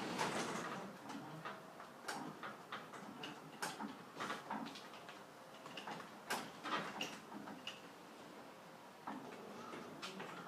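Garage door being raised by hand, its panels and rollers clacking and rattling in the tracks in irregular bursts.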